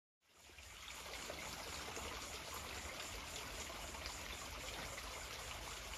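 A steady hiss of running water fades in just after the start and holds evenly, over a low rumble.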